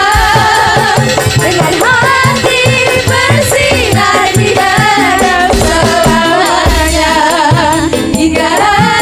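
A group of sinden, female Javanese singers, singing together into microphones over live gamelan-style band music with regular drum beats.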